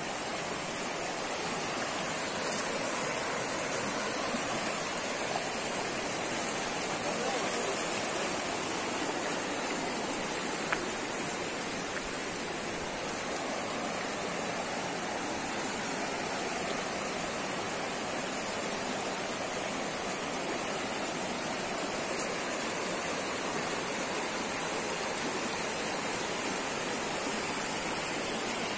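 Shallow rocky stream rushing and splashing steadily over stones and small rapids, with a steady high-pitched hiss above it.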